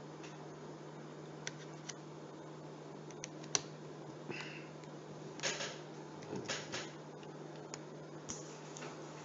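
A Dell Latitude E4300 laptop being handled during keyboard removal: scattered plastic clicks and taps, with a few brief rustles about midway, over a faint steady hum.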